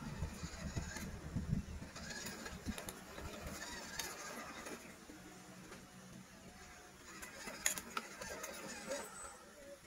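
Small electric motors and geartrains of 1/12-scale MN RC crawlers driving slowly over loose rocky dirt, with scattered clicks of stones under the tyres. It is louder in the first second or so, then quieter, with one sharp click near the end.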